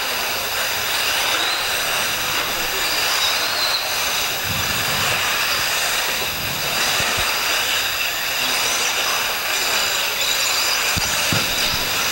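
1/8-scale electric off-road RC buggies racing on a dirt track: a steady hiss with several high, whining tones over it.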